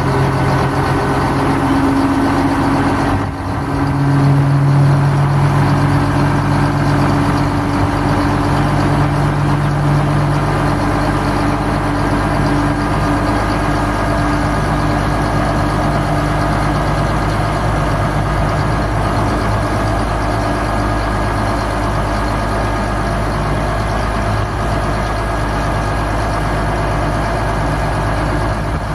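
1988 International F2554 dump truck's diesel engine running steadily, driving the PTO hydraulic pump as the barrel dump bed is raised on its rams. The sound dips briefly about three seconds in, then runs a little louder.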